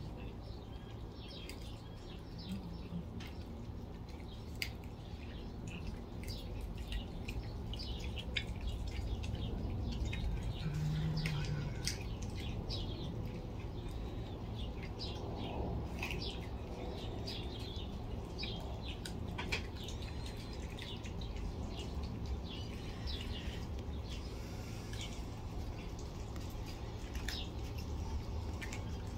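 Cats chewing raw chicken, a stream of short wet clicks and smacks, with small birds chirping now and then.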